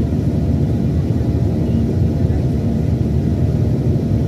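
Steady cabin noise inside a Boeing 737-800 jet airliner: its CFM56-7B engines and the airflow give a loud, even low rumble.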